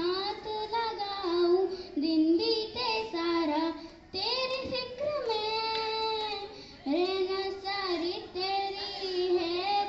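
A young girl singing solo into a handheld microphone, without accompaniment, holding long notes with slides between them and pausing briefly for breath twice.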